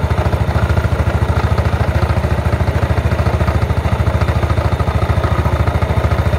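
Yamaha Mio scooter's single-cylinder four-stroke engine idling steadily with an even pulse. Its vacuum carburettor has been cleaned and the idle set with the screw three turns out, and it is running normally again, the bogging cured.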